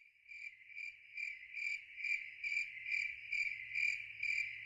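Cricket chirping sound effect, a high pulsing chirp about two to three times a second that fades in from silence: the comic 'crickets' cue for an awkward silence after a joke falls flat.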